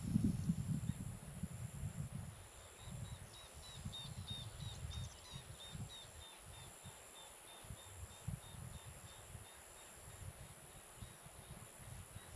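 Outdoor grassland ambience: wind buffeting the microphone in gusts, strongest at the start. A bird calls a run of short chirps, about four a second, that fades out in the middle. A steady high insect drone sits under it all.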